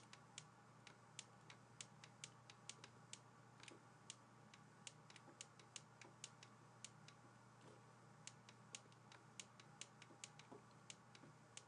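Faint, irregular clicks of a stylus tapping on a drawing tablet while handwriting, a few per second, over a low steady hum.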